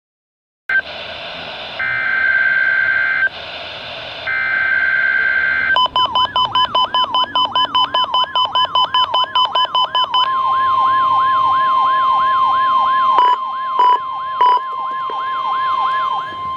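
Emergency Alert System test tones from a NOAA Weather Radio broadcast. First come about five seconds of buzzy, alternating digital data bursts. Next is a siren-like pitch sweep repeating about three to four times a second over a steady tone, pulsing at first. The steady tone then sounds as the NWR warning alarm tone, broken three times near the end.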